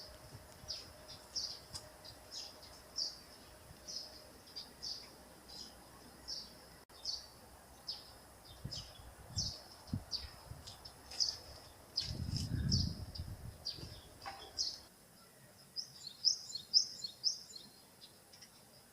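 A small bird chirping again and again in short high notes, about one or two a second, with a quicker run of chirps near the end. A few dull low thumps about nine seconds in and a short low rumble about twelve seconds in.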